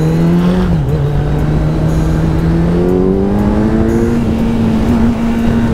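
Kawasaki Z900's inline-four engine with an Akrapovič slip-on exhaust, pulling under acceleration. The engine note rises, dips briefly about a second in, then climbs slowly and holds steady through the second half.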